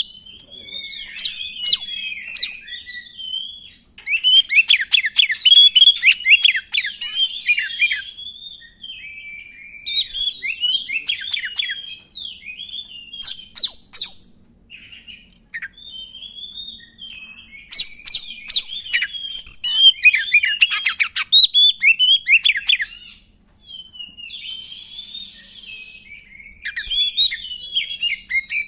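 Black-breasted oriental magpie-robin (kacer hitam) singing a long, varied song of whistled phrases and fast trills in full song, broken twice by a harsh rasping call.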